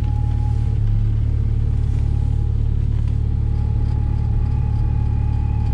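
1998 Jeep Cherokee XJ engine running with a steady low rumble just after a cold start at −16 °F, heard from inside the cab. A steady whine rides over it, which the owner thinks is the power steering.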